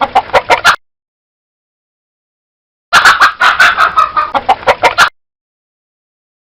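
Domestic chicken clucking: a quick run of short clucks that stops under a second in, and a second run of clucks from about three to five seconds in.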